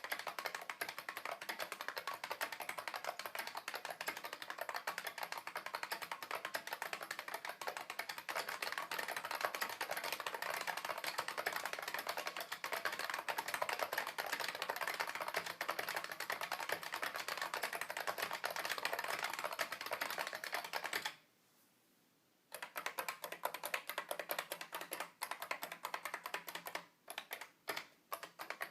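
Fast, continuous typing on an IBM 3278 beam spring keyboard: a dense stream of sharp key clicks. It stops for about a second and a half roughly three quarters of the way through, then resumes with a few brief pauses near the end.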